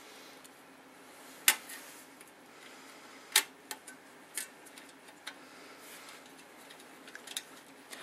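Small metallic clicks and taps of screws and a Phillips screwdriver against a steel hard-drive cage as the drive is screwed in. They come singly and scattered a second or so apart, the sharpest about three and a half seconds in.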